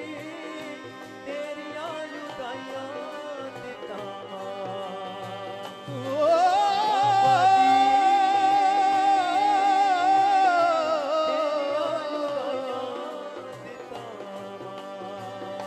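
Punjabi devotional kirtan music between sung lines of the shabad, with a steady low drum beat. About six seconds in, a loud, long wavering melody note swells up, holds, and eases off by about thirteen seconds.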